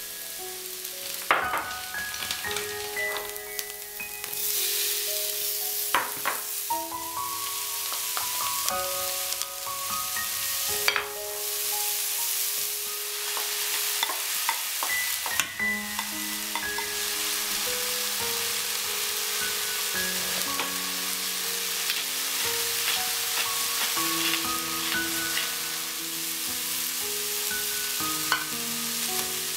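Food sizzling as it fries in a pan and is stirred, with a spatula now and then knocking sharply against the pan, over background music of short, evenly held melodic notes. The sizzle grows louder about four seconds in.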